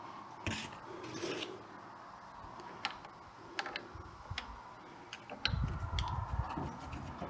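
Light metallic clicks and scraping as a screwdriver and hands work a crankshaft bearing cap loose on an old cast-iron hit-and-miss engine, with a few sharp ticks spread through. Low rumbling handling noise comes in near the end.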